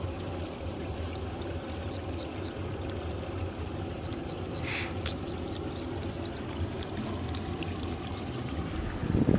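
Water dribbling and lightly splashing as small crabs are cleaned by hand over a steel pot of water, with small ticks and one short splash about five seconds in, over a steady outdoor background.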